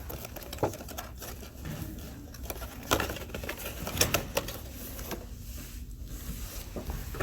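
Toy packaging being handled: cardboard and plastic rustling, with a few scattered sharp taps and clicks.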